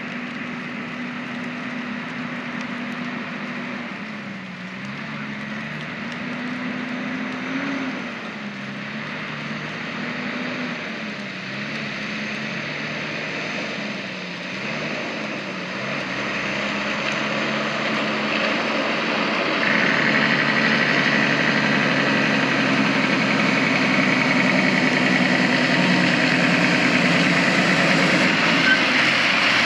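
Caterpillar C12 diesel engine of a loaded 2001 Peterbilt 387 log truck approaching, its pitch rising and falling several times, then growing louder and steadier over the last ten seconds as the truck comes close with its Jake brake (engine compression brake) working.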